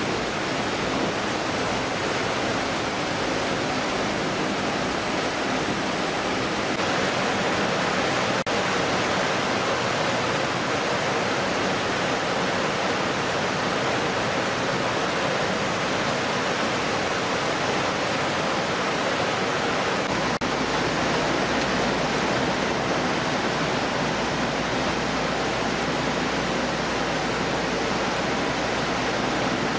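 Steady rush of running water and machinery from a fish-processing line: conveyors running while water flows through the fish chutes, an even noise with no distinct strokes or rhythm.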